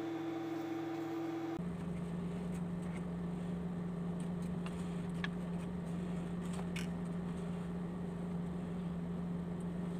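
A steady machine hum that drops abruptly to a lower pitch about a second and a half in, then holds, with a few faint light ticks.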